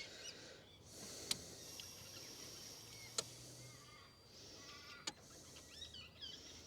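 Faint whir of a Holden VR Commodore's electric fuel pump priming, pushing contaminated fuel through the lines and out of the regulator to flush the system, with a few light clicks.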